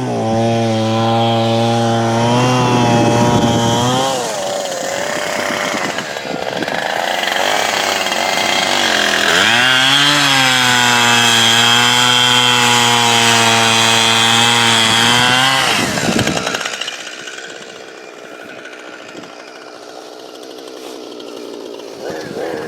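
Gas chainsaw running at full throttle in two long runs, the first about four seconds and the second about six, with the revs dropping between them; it cuts off about sixteen seconds in, leaving a much quieter hiss.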